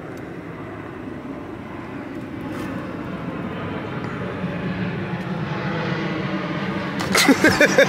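Steady engine rumble that grows gradually louder over several seconds.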